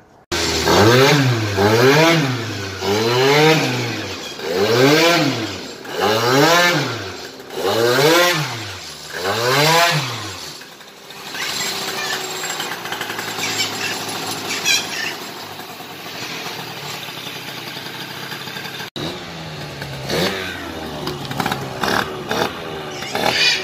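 Yamaha Jog scooter's small two-stroke engine revved up and down about seven times, roughly one blip every second and a half, then running more evenly. The engine has just been rebuilt and is on its first test runs.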